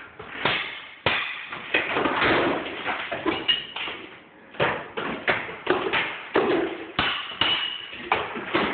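Hammers striking a plaster-and-lath wall in irregular, uneven blows, knocking and breaking the plaster away from the wooden lath.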